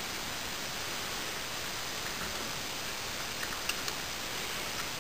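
Steady background hiss with a few faint, light clicks a little past halfway and near the end, from the brake actuating cam and brake parts being handled and fitted into the brake backing plate.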